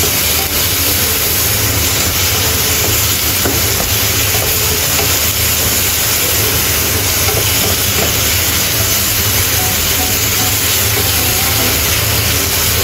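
Diced red onion and tomato sizzling in a nonstick frying pan as they are stir-fried with a wooden spatula: a steady frying hiss, with a steady low hum underneath.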